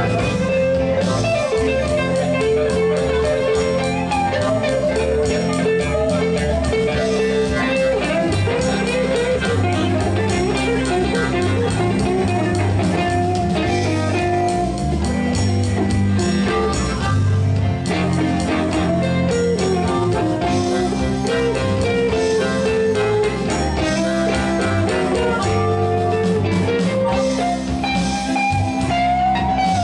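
Background music: a blues-style guitar piece with a steady beat.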